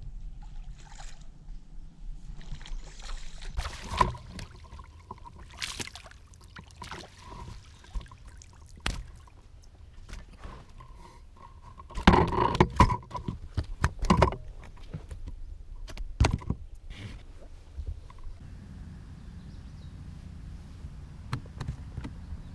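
A crappie being landed into a small fishing boat: scattered bumps and clicks of handling, then a cluster of loud knocks and rattles about twelve seconds in as the landing net and the fish come down onto the boat's deck, with another knock a few seconds later.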